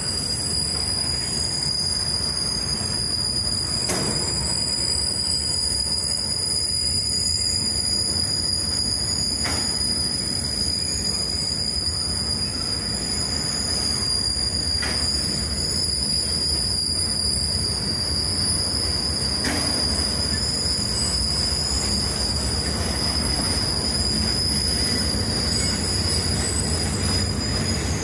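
Long welded-rail train of loaded flatcars rolling past, its wheels squealing in a steady high whine over a continuous rumble. A few sharp clacks come from the wheels on the track.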